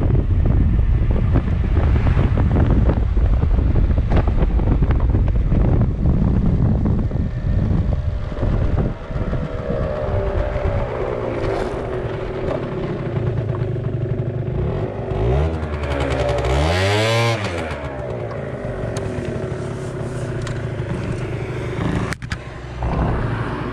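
Gilera Runner 50 two-stroke scooter: first wind buffeting the microphone at riding speed, then the engine slowing to a steady idle. About two-thirds of the way through, a single throttle blip makes the engine pitch rise and fall again. A knock near the end.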